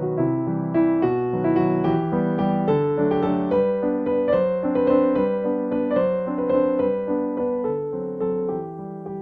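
Background music: a piano or electric piano melody with chords, playing steadily.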